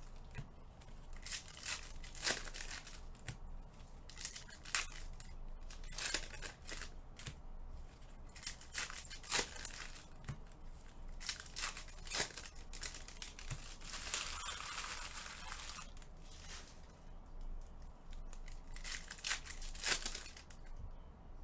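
Trading card pack wrappers crinkling and tearing as packs are handled and opened, with many sharp clicks and snaps of handling and a longer tearing rustle about 14 seconds in.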